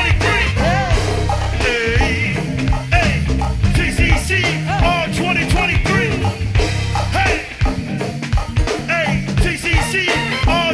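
Live crank-style go-go band playing a groove: heavy bass and drums in a steady pulse, with a voice over the top.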